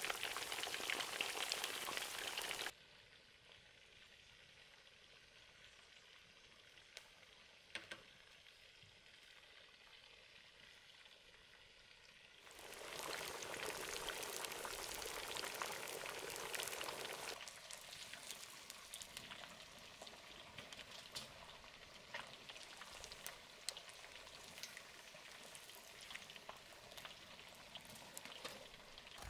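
Chicken drumsticks deep-frying in a large wok of hot oil, a steady bubbling sizzle with fine crackling. It drops abruptly to faint about three seconds in, comes back strongly around twelve seconds, and eases to a moderate level a few seconds later.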